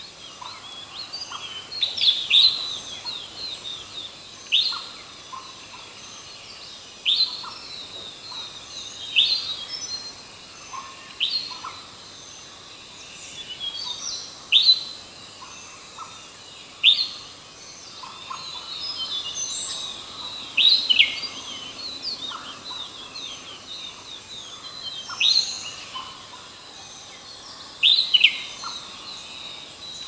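Birds calling: a loud, sharp note that drops in pitch, repeated every two to three seconds, with softer chirps in between.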